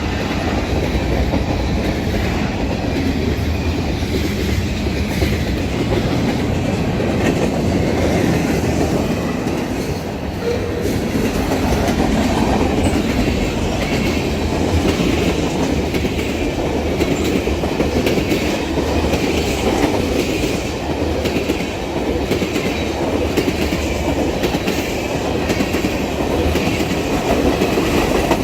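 BNSF freight train cars rolling past at steady speed, wheels clattering over the rail joints.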